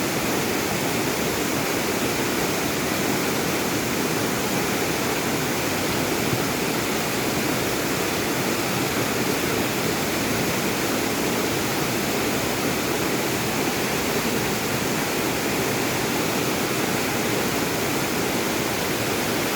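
Mountain valley stream rushing steadily, a constant, even roar of water.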